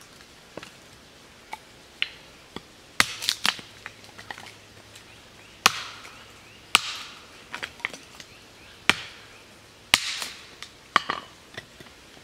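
Hatchet chopping and splitting a cedar billet on a wooden chopping stump: a series of sharp chops, a few light taps at first, then about a dozen hard strikes from about three seconds in, some followed by a brief crackle of wood splitting.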